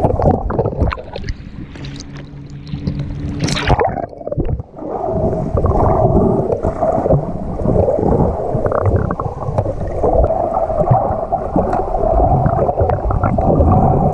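Wind rumbling on the microphone and water rushing along a sailing boat's hull, with a brief steady hum in the first few seconds.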